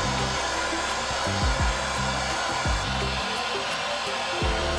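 Handheld gas blowtorch burning with a steady hiss, its flame held on a copper pipe to heat it for soldering.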